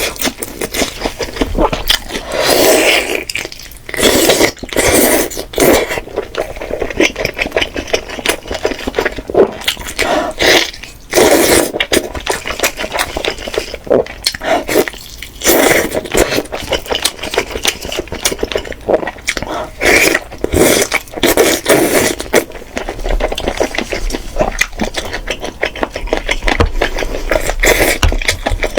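Eating sounds: steamed chicken being bitten and chewed in irregular bursts, with clinks and scrapes of utensils on a dish.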